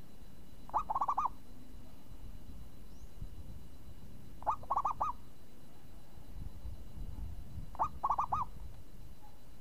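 Zebra dove (perkutut) singing its cooing song three times, about every three and a half seconds: each phrase a single opening note followed by a quick run of about four rolling notes. A low steady rumble lies underneath.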